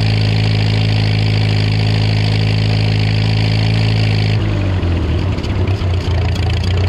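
Oliver 66 tractor's four-cylinder engine running steadily at high throttle, then throttled back a little over four seconds in to a lower, uneven running beat.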